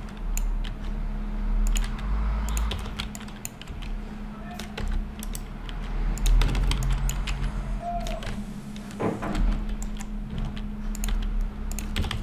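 Computer keyboard keys and mouse buttons clicking irregularly while Blender shortcuts are used, over a steady low hum.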